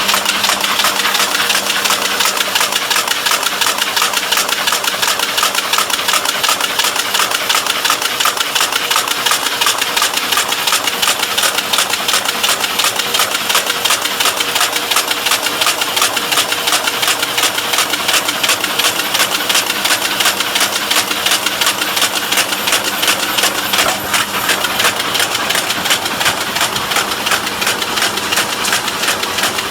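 Automatic can body welding machine running in production, a fast, even mechanical clatter over a steady hum.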